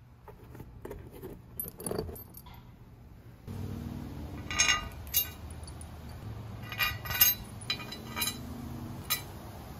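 Metal bolts and washers clinking against a metal top-case mounting plate as they are fitted through its holes: soft taps at first, then a run of sharp clinks in the second half.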